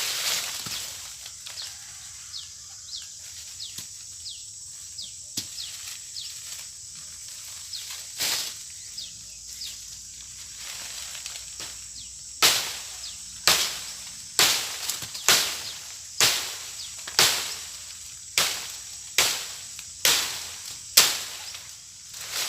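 Short falling bird chirps. Then, from about halfway, a run of about ten sharp chopping strikes, about one a second, each dying away quickly.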